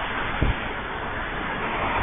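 Road traffic noise at an intersection: a steady rush of tyres and engines that swells near the end as a car passes close, with a brief low thump about half a second in.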